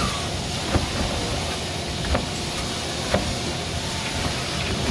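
Dishwashing: a steady hiss of spraying water with a sharp clatter of dishware about once a second.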